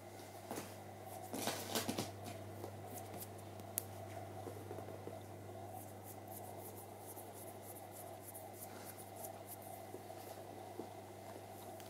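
Faint rustling of fabric and light scratching as a kitten and a hand move on a quilted bedspread, louder for a moment about a second and a half in, with scattered faint ticks afterwards. A steady low hum runs underneath.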